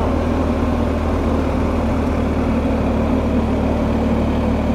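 BMW R1250 GS Adventure's boxer-twin engine running at a steady cruise, under a constant rush of wind and road noise, with no change in pitch.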